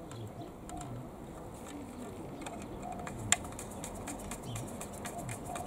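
Screwdriver work on the mains terminal block inside a streetlight's metal gear box, with a sharp metallic click a little over halfway through and another at the end.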